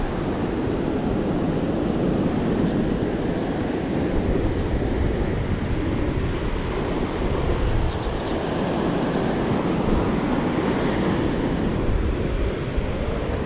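Steady rush of surf on the beach, with wind buffeting the microphone.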